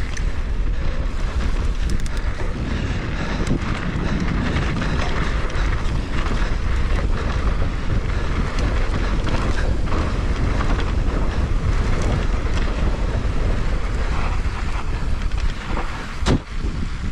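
Wind buffeting the action camera's microphone as a mountain bike rolls fast down a dirt singletrack, with steady tyre noise and scattered clicks and rattles from the bike over the rough ground.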